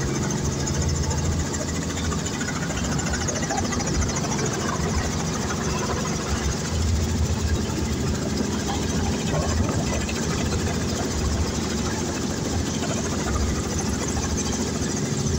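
Helicopter engine and rotors running steadily, heard loud from inside the cabin.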